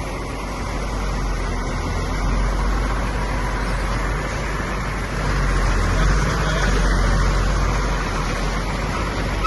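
Motor vehicle running, a steady rumble with road noise that swells louder twice.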